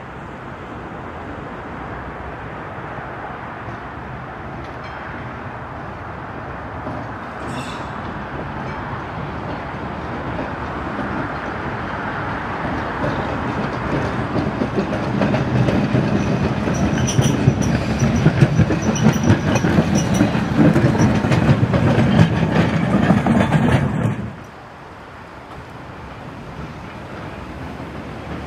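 Ballarat tram No. 37, a 1916-built electric bogie tram, running along the track, its wheels rumbling and clacking over the rails. The sound grows louder as the tram draws near and passes, then drops suddenly about 24 seconds in to a quieter rumble as it moves away.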